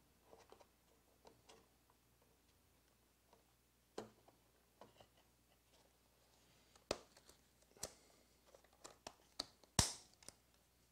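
A handful of short plastic clicks and taps as the clips of a Tigra waterproof iPhone case are pressed shut around the phone. They come closer together in the second half, and the loudest is a sharp snap near the end.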